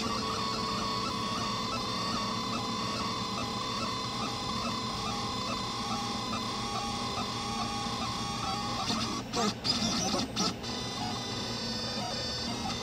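Delta 3D printer printing, its stepper motors whining in short, shifting tones as the head moves, over the steady hum of the hotend's cooling fan. A few brief louder noises break in about nine to ten seconds in.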